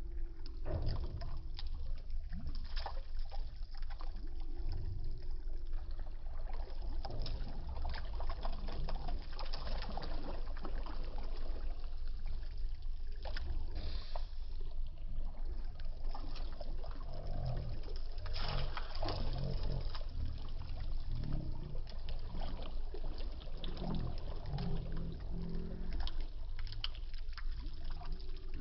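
Shallow water splashing and lapping close to the microphone as a hand scoops and sweeps through it, with many small splashes over a steady low rumble.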